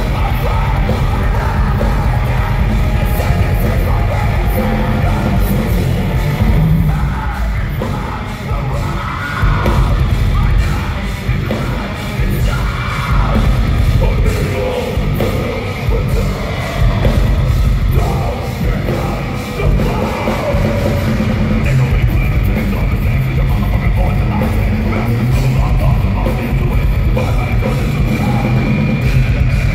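A heavy metal band playing loud, with distorted guitars, bass and drums under a singer's shouted, sung vocals. It is heard from within the crowd in a large arena.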